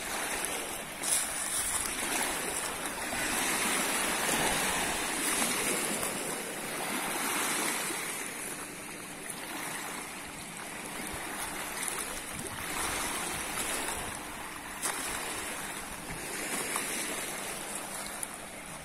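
Small waves lapping and washing up on the reservoir's stony shore, rising and falling in slow surges every few seconds.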